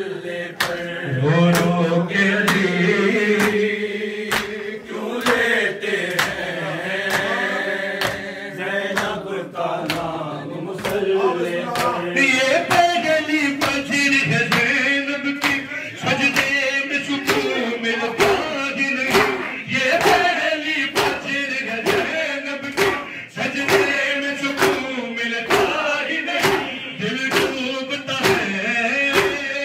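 A man sings a noha, an Urdu mourning lament, into a microphone with long held notes. A steady beat of hands striking chests in matam keeps time, growing stronger about halfway through.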